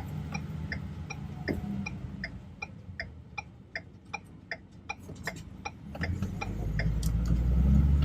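A car's indicator or hazard-light relay ticking evenly, about two to three ticks a second, inside the stopped car. From about six seconds in, a low vehicle rumble builds up and grows louder.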